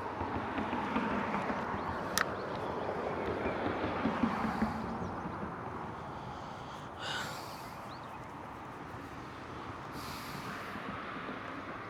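Steady road traffic noise from a nearby road: a vehicle's tyre and engine noise swells, then slowly fades. There is a sharp click about two seconds in and two brief rustles later on.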